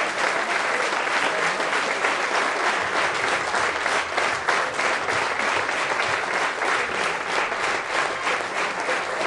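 Theatre audience applauding at the end of a concert: dense, steady clapping from many hands.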